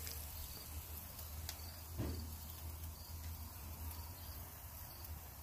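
Faint steady hiss over a low rumble at an outdoor charcoal grill, with a light click about a second and a half in, typical of a metal utensil touching the grill grate while chicken wings are laid on it. A short falling sound comes about two seconds in.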